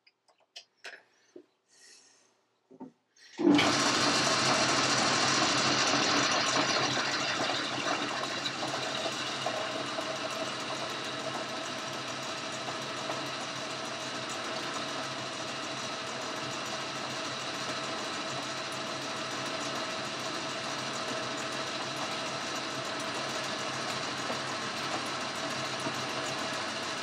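A few light clicks of hands at the work in a lathe chuck. About three and a half seconds in, the Boxford lathe starts and runs steadily, its motor and drive giving a humming whir with several steady tones, a little louder for the first few seconds before settling.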